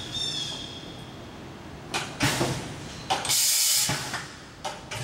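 Pneumatic hissing and clicking from a YCM Supermax XV1020A vertical machining center: a short burst about two seconds in, then a strong blast of hissing air lasting most of a second, and a couple of sharp clicks near the end.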